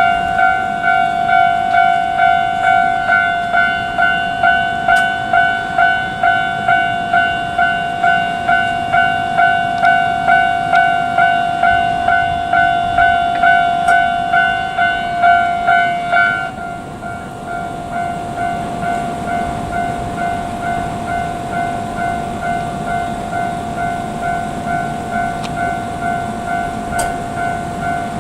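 Japanese railway level-crossing warning bell ringing steadily, about two strikes a second, warning of an approaching train. About sixteen seconds in it turns quieter and duller, and a low rumble grows underneath.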